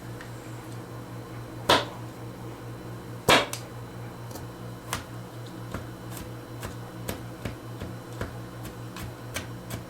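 Kitchen knife chopping garlic on a cutting board: two hard knocks in the first few seconds, then a run of lighter taps, about two or three a second.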